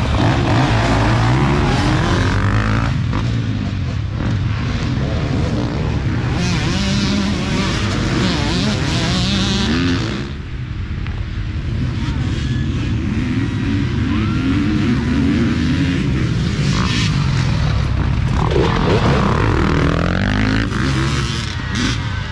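Several dirt bike engines revving hard and accelerating away from a race start, their pitch climbing and dropping through the gears. The noise dips briefly a little under halfway through, then more bikes rev up and accelerate again.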